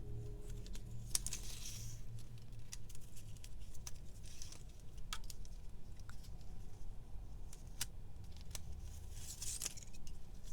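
Handling a handheld label maker and its label tape: scattered small plastic clicks with two brief rustles of the tape, about a second in and near the end.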